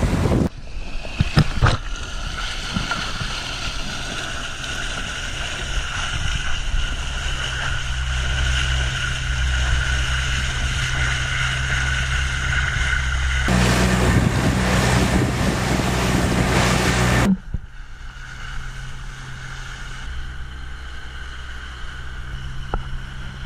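Parsun outboard motor running steadily as a small boat speeds over the water, with rushing spray and wind on the microphone. The sound changes abruptly twice, growing louder and rougher for a few seconds, then dropping back.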